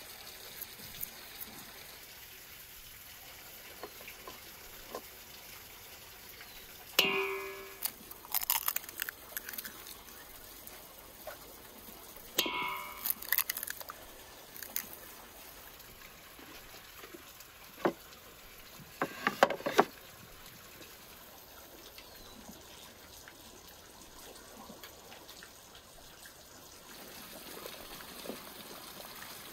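Steady trickling of water in the background, broken by a few sharp knocks and clinks on a steel mixing bowl. Two of them, about seven and twelve seconds in, ring briefly, as eggs are cracked against the bowl into the flour.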